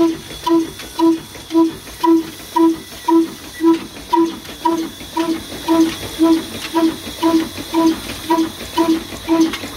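Old Ruston Hornby stationary diesel engine running steadily, its exhaust beating at an even pace of about two strokes a second, each beat a short ringing pop, over a steady hiss and light mechanical clicking.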